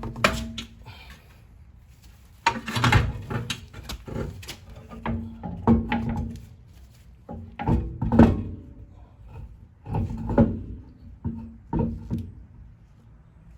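17 mm socket wrench working the wheel's lug bolts: about six short bursts of metallic clicks and clanks, some with a brief low ring.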